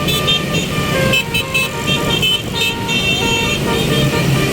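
Bus telolet horn, a Basuri multi-tone air horn, playing a tune of short notes that step up and down in pitch, over steady engine and road noise.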